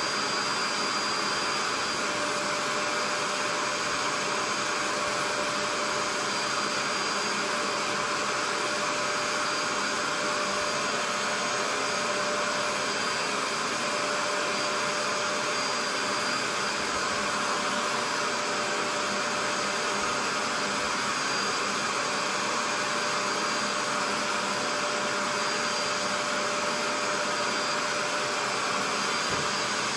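Portable carpet and upholstery cleaner running steadily, a constant hum with a thin whine on top, its suction motor drawing the cleaning liquid back up through the hose and hand tool as it is passed over the fabric of a recliner.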